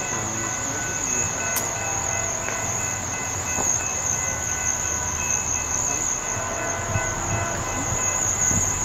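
Train rolling past with a steady, continuous rumble.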